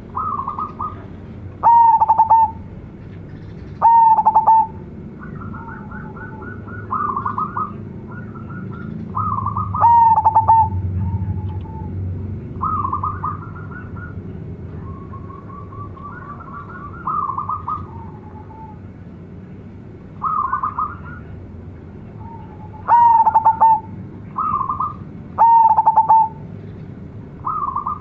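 Zebra dove (perkutut) singing its cooing song, about a dozen phrases in a row. Each phrase is a run of quick rolling notes, and the loudest end in a clear, drawn-out coo.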